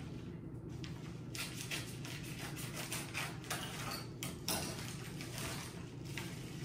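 A series of short rustles and crinkles of gift packaging being handled.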